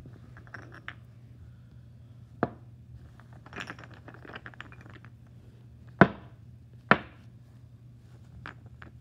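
Chess pieces being handled and set down on a board, knocking against one another: several sharp clicks, the two loudest close together a little past the middle, with a short stretch of quick small clicks and rustling before them. A low steady hum sits underneath.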